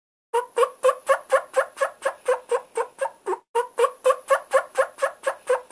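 A turkey calling: a rapid series of short pitched calls, about four a second, in two runs with a brief break between them.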